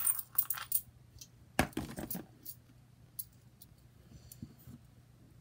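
Coins clinking as they are tipped out of a small basket into a hand: a cluster of light clicks, one louder clink about a second and a half in, then a few faint taps.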